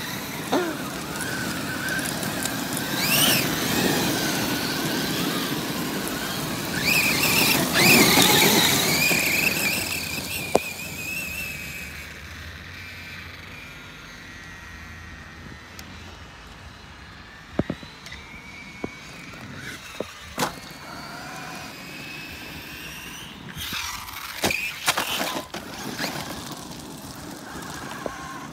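Thunder Tiger eMTA electric RC monster truck driving over gravel: a high motor whine rises and falls with the throttle over a rough noisy rush. It is loudest for the first ten seconds or so, then fainter, with another short burst near the end.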